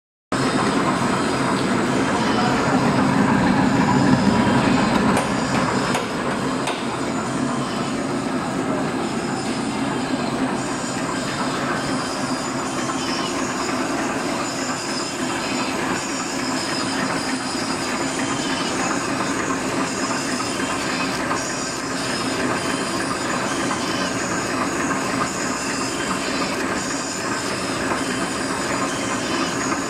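Plastic drinking-straw bending machine running: a steady, dense mechanical clatter, a little louder for the first few seconds.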